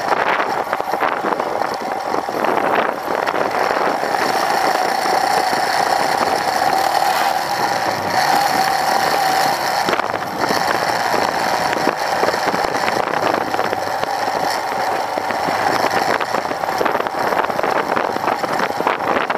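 Royal Enfield Himalayan's single-cylinder engine running steadily as the motorcycle rides along at an even speed, mixed with a steady rush of wind and road noise.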